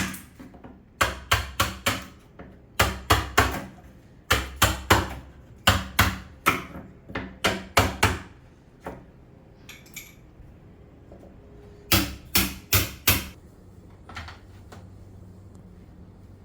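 Sharp knocks, in quick runs of three or four, repeating about every second and a half, with a last run near the end.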